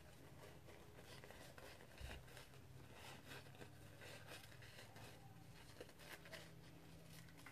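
Faint, irregular snips of small scissors cutting through a paper napkin, with soft paper handling, over a low room hum.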